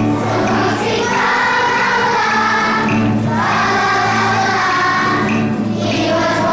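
A children's choir singing together over a musical accompaniment, in sung phrases a couple of seconds long.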